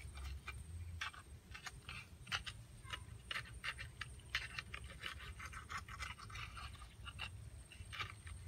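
Bare hand groping in wet mud and shallow water at a mud crab burrow: irregular small splashes, squelches and scrapes, several a second.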